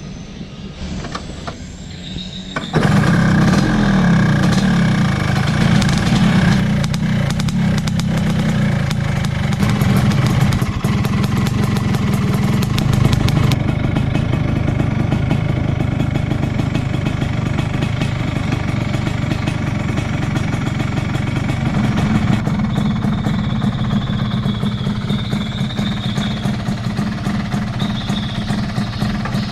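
Vespa Sprint V scooter's 215cc two-stroke performance engine running. About three seconds in it gets suddenly much louder, then keeps running steadily.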